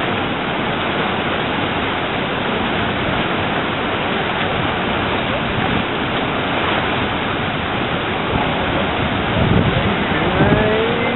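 Steady rushing of turbulent whitewater churning out below a pumping station. A voice calls out briefly near the end.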